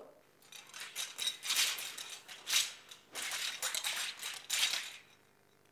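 A pair of wushu broadswords swishing through the air in wrapping cuts around the head and shoulders, several whooshes in a row with clothing rustle.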